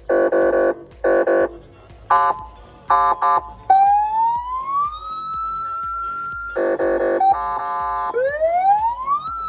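Electronic American-style vehicle siren with two horn speakers being run through its tones: a few short buzzy horn blasts and quick chirps, then a wail that rises and holds high. More horn blasts follow, then another rising wail near the end.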